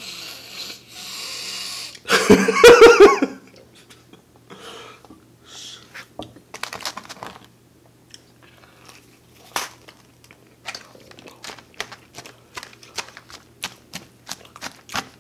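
Close-miked eating: loud breathing through the nose, then a loud wavering vocal sound about two seconds in, followed by chewing with crisp crunching clicks. Near the end a plastic fork spears lettuce in a plastic salad bowl.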